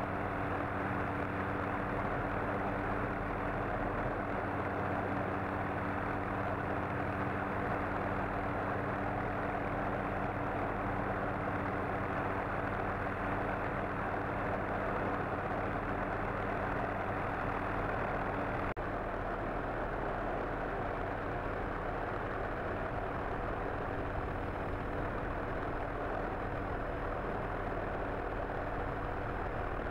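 Helicopter engine and rotor noise heard from aboard: a steady drone with several low, even tones under a dense rushing noise. It dips slightly in level about 19 seconds in.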